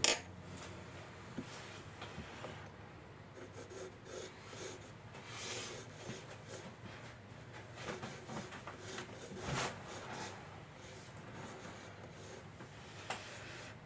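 Pencil scratching and shading on sketchbook paper in short, irregular strokes, with a sharp click right at the start.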